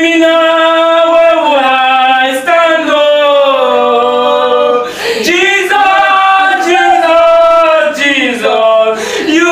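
Men and women singing a gospel worship song in long held notes: "If you leave me now, where will I stand", then "Jesus" three times.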